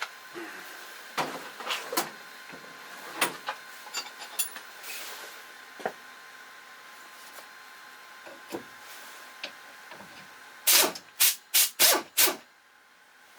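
Workshop handling noise from a brake caliper strip-down: scattered small clicks and knocks of tools and caliper parts, then, near the end, five loud short noisy strokes in quick succession, over a faint steady whine.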